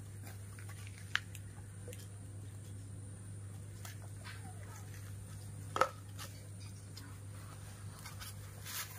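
A plastic milk bottle clacking once on a tile floor, the loudest sound, about six seconds in, over a steady low hum. A shorter, fainter click comes about a second in.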